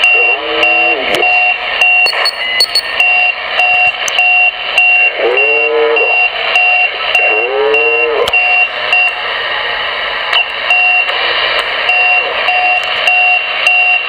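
CB radio receiving an unidentified beeping signal on 27.395 MHz (channel 39): short steady beeps about twice a second over constant static hiss, with a few brief warbling tones passing through. The uploader could not tell whether it is a channel marker, jamming or a practical joke.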